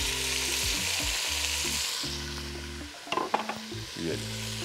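Raw chicken pieces sizzling steadily as they fry in hot oil over high heat.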